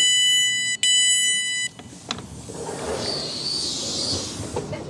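Door-open beeping of a South Western Railway Class 450 Desiro electric train as its passenger doors open after the Open button is pressed: two long, high, steady beeps that stop about a second and a half in. A click follows, then softer hiss and whine of the door gear and the carriage.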